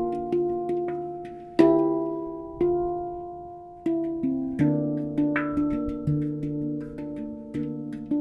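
Handpan played with the hands: single struck steel notes ringing out and decaying, with a slow, spaced phrase in the middle and a quicker run of notes in the second half.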